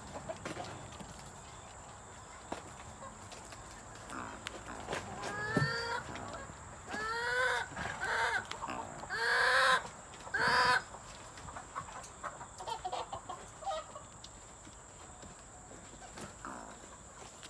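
Male Sri Lanka junglefowl calling: a run of short calls that bend in pitch, starting about four seconds in and ending around eleven seconds with two louder, harsher notes.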